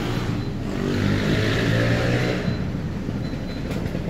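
Road traffic going by, with one vehicle's engine and tyres growing louder as it passes about one to two and a half seconds in.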